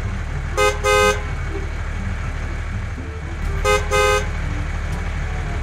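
Toy tractor horn honking twice, each time a short beep followed by a longer one, about a second in and again near four seconds, over a steady low hum.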